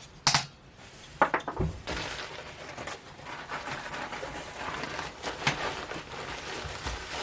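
Packing paper rustling and crinkling steadily while the shakers are handled, with a few sharp clicks and knocks scattered through.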